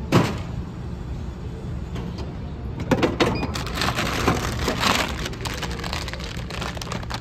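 A knock as the purchase lands in a food vending machine's delivery tray, then clattering of the plastic flap and rustling of the boxed meal as a hand pulls it out, around the middle. A steady low hum of the ferry's engines runs underneath.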